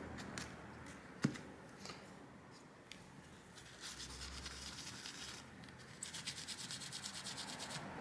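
Tissue paper wetted with isopropyl alcohol being rubbed over a laptop's processor die to wipe off old thermal paste: a faint scrubbing hiss, with a single click about a second in and quick, even back-and-forth strokes, about six a second, in the last two seconds.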